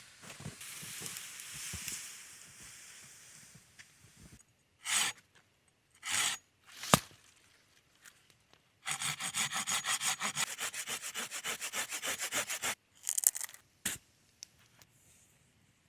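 Back-and-forth sawing with a blade: a few single strokes and a sharp knock, then a fast, even run of about five or six strokes a second lasting nearly four seconds, ending with a last short stroke and a click.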